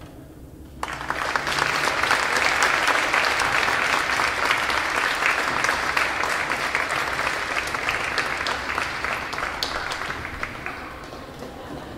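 Audience applauding, starting suddenly about a second in and tapering off near the end.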